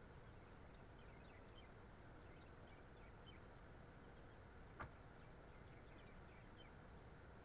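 Near silence: a faint steady background noise with faint high chirps scattered through it, and one short click about two-thirds of the way in.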